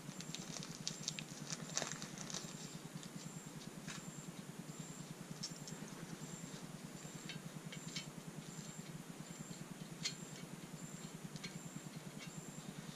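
Scattered light clicks and knocks of metal parts and tools being handled on a bare aluminium Honda B18C engine block during a rebuild, a few seconds apart, over a steady low hum.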